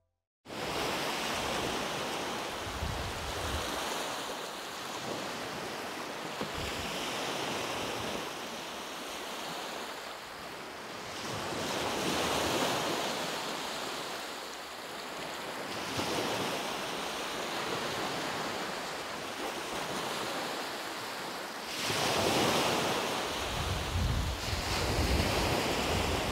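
Ocean surf washing onto a sandy beach, the noise of the waves swelling and fading every few seconds.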